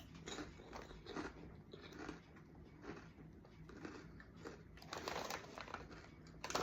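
Faint, irregular crunching of someone chewing crisp salted-egg potato chips, a little busier about five seconds in.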